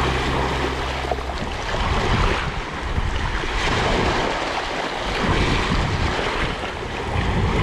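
Sea waves surging and washing back in slow swells, a rushing noise with no steady tones. A held music chord fades out about a second in.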